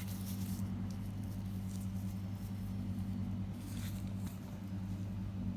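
A steady low hum throughout, with a few faint light clicks of a socket and spark plug being handled, near the start and again past the middle.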